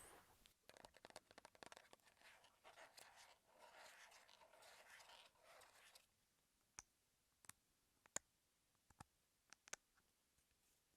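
Close-miked, quiet ASMR trigger sounds: a dense, soft crackling and scratching for about six seconds that cuts off suddenly, followed by a handful of scattered single sharp clicks.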